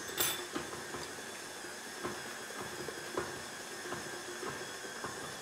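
A few short, light clicks and taps of kitchen utensils as spices go into the cooking pot, over a steady faint hiss.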